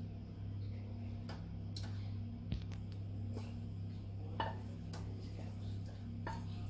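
Metal saucepan clicking and scraping lightly against a mesh sieve as thick red fruit sauce is poured through it: scattered soft ticks over a steady low hum.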